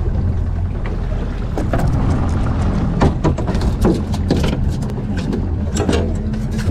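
Boat engine running steadily with a low hum, over a run of irregular knocks and slaps on the cockpit floor as a freshly landed small barracuda thrashes and shakes itself free of the lure.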